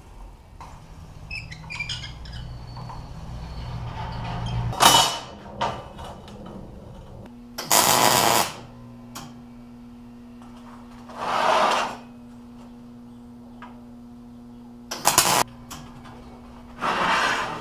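A vise-mounted bender rolls a flat steel bar, rumbling and squeaking, with a loud metal clank about five seconds in. Then a MIG welder hums steadily while four tack welds, each about a second long, crackle and hiss as a steel ring is tacked to a steel plate.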